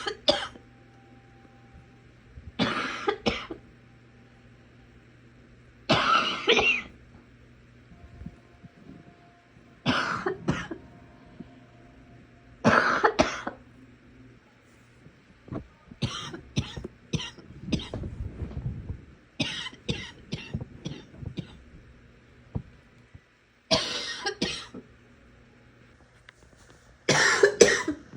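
A sick person coughing in repeated fits, about nine bouts a few seconds apart. Some are one or two harsh coughs; the fits near the middle are quick runs of short coughs.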